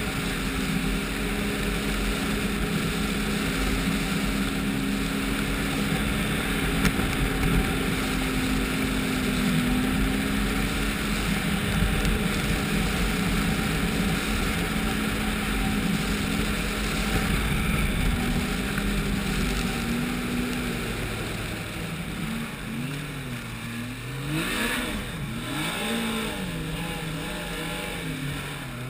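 Ski-Doo snowmobile with a Rotax 1200 4-TEC four-stroke three-cylinder engine running at a steady cruising pitch over the rush of wind and snow. About 20 seconds in, the engine pitch starts rising and falling several times as the throttle is eased on and off.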